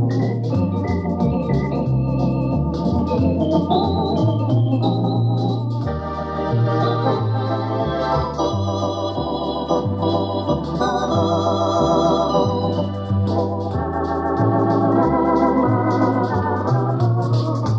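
Eminent 2000 Grand Theatre electronic organ playing a tune: pedal bass notes changing about every second under sustained chords and a melody of short notes, with fast high ticking from the percussion near the start and again near the end. It is heard from a 1970s demonstration tape with some wow and flutter.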